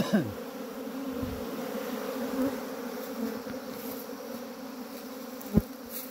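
Steady buzzing hum of a large swarm of honeybees (Apis mellifera) crowding in at the front of a wooden hive box as they move in, with one short thump about five and a half seconds in.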